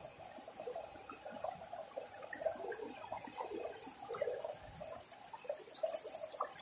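Shallow creek water trickling and babbling over rocks, a soft, steady burble, with a few sharp clicks, the clearest about four seconds in and near the end.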